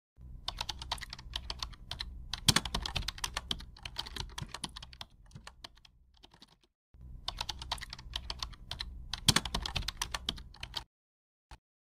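Computer keyboard typing sound effect: rapid key clicks in two runs, the first about six and a half seconds long and the second about four, with a brief pause between them and a single click near the end.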